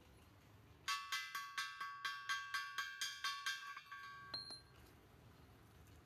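A quick run of about a dozen ringing, chime-like metallic strikes, about four a second, starting about a second in and lasting some three seconds, then a single short high ping.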